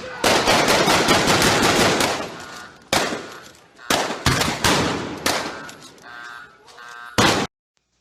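Gunfire sound effect in a video intro: a long rapid burst of automatic fire, then several separate shots, each fading away, cutting off suddenly near the end.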